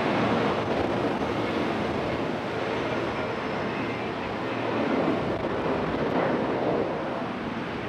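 Boeing 717-200's twin rear-mounted Rolls-Royce BR715 turbofans at takeoff thrust as the jet rolls, rotates and lifts off: a steady jet rush that eases a little near the end.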